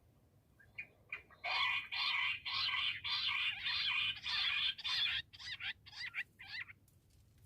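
Bush quail calling: a few faint short notes, then from about a second and a half in a fast, dense run of repeated high calls lasting several seconds, breaking up into separate, fading notes near the end.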